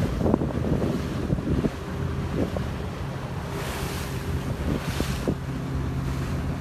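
Motorboat under way: its engine running with a steady low drone while water rushes past the hull. Wind buffets the phone's microphone, with a strong gust in the middle.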